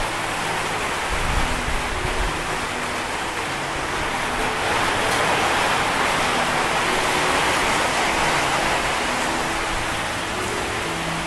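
Heavy rain pouring down, a steady hiss that swells a little midway through.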